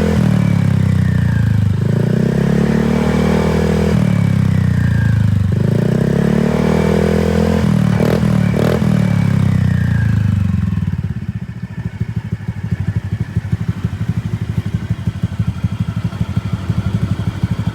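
Honda Vario scooter engine through an aftermarket 'kondoman'-type exhaust, revved in four blips about two seconds apart. It then drops back to a lumpy, pulsing idle about eleven seconds in, with two sharp clicks just before.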